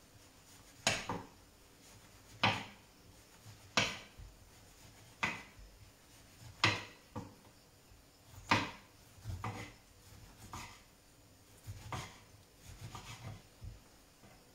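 Kitchen knife slicing a lemon on a wooden cutting board. About every second and a half the blade knocks sharply on the board, and softer, more frequent knocks follow in the second half.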